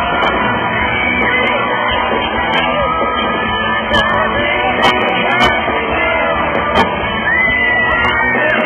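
Live pop-rock band playing with sung vocals, while fans close by scream and sing along.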